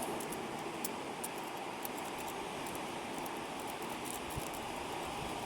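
A lock-pick rake worked lightly back and forth in a padlock's pin-tumbler cylinder under light tension, giving faint, rapid, irregular scratchy clicks as it rakes over the pins. Behind it, a steady hiss of outdoor background noise.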